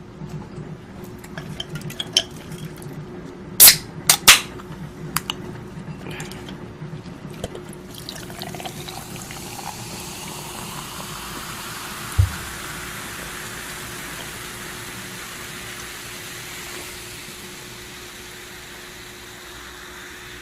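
Lemon-lime soda being opened and poured into a glass: small clicks and two loud snaps about four seconds in, then from about eight seconds a long pour whose pitch rises as the glass fills, leaving a steady fizzing hiss. A single low thump comes about twelve seconds in.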